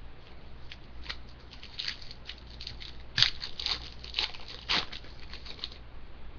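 Trading cards being flipped through and handled by hand: a run of quick, light card snaps and clicks, a few each second, with two louder snaps near the middle, stopping near the end.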